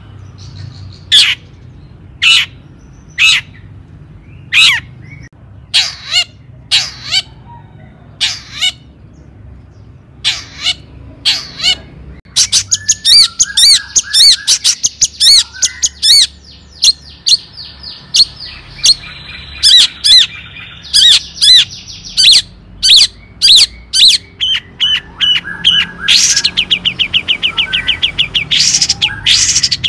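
Long-tailed shrike (cendet) calling: harsh single calls about once a second, then from about twelve seconds in a busy stream of quick chattering notes, ending in a fast, even rattle.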